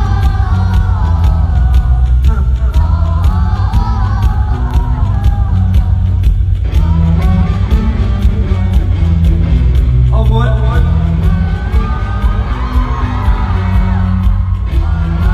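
Loud amplified pop music played through a concert sound system at a sound check: a singing voice over a heavy bass line and a steady beat.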